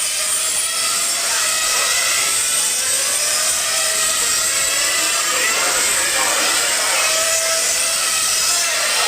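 Several 1/8-scale on-road nitro RC cars' small two-stroke glow engines screaming at high revs, their pitches overlapping and gliding up and down as the cars throttle and brake around the track.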